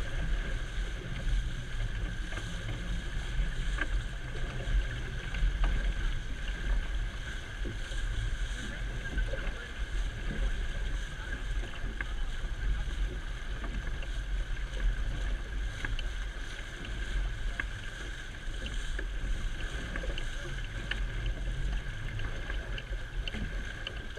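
Water rushing and splashing in a sailing boat's wake, with wind rumbling low on the microphone.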